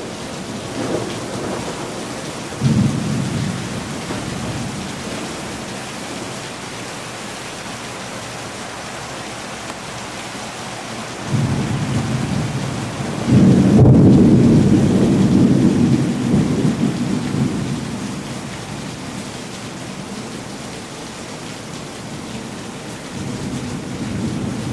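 Steady hiss of rain, with several muted rolls of distant thunder. The loudest and longest roll comes about 13 seconds in and fades over several seconds.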